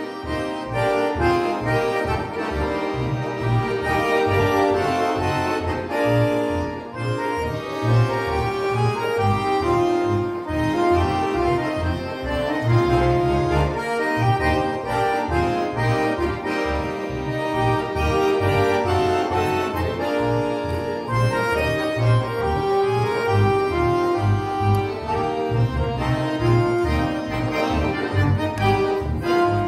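Accordion quintet playing live: sustained accordion chords and melody over a steady, driving low bass pulse.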